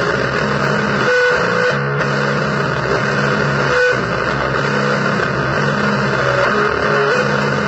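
Noisy blues-style music on distorted electric guitar: held low notes cut in and out over a dense, steady wash of noise, with short higher notes sounding now and then.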